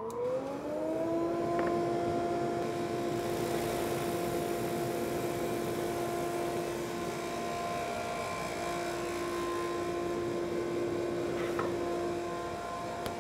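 SuperMax 19-38 combo drum/brush sander with its flatter head running up to speed with a rising whine, then running steadily. A veneered plywood panel is fed through under the abrasive fingers, adding a rushing sanding hiss through the middle.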